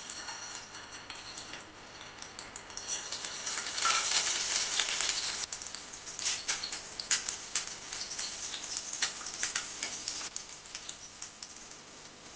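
Food frying in hot oil in a pan, sizzling with many sharp crackling pops, swelling louder about three seconds in and easing off after six.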